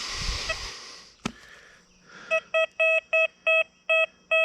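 Deus 2 metal detector sounding a rapid string of short, identical target beeps, about five a second, starting about two seconds in, as it passes over a US quarter. A brief rustle and a single click come just before.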